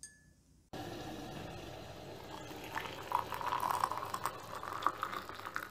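Tea pouring from a teapot into a cup: a steady pour that starts just under a second in.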